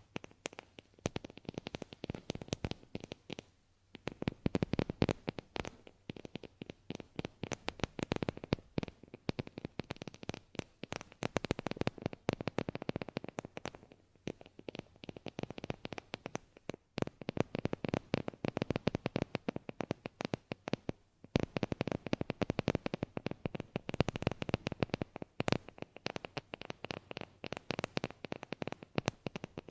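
Close-miked ASMR trigger sounds: a dense run of quick clicks and taps, in clusters with short pauses between them.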